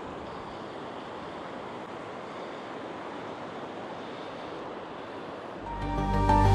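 Steady sea surf with wind on the shore. About five and a half seconds in, background music fades in over it.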